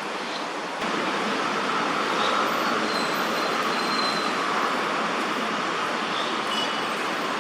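Steady outdoor background noise, a continuous even hiss centred in the mid range, which steps up in loudness about a second in, with a few faint short high chirps over it.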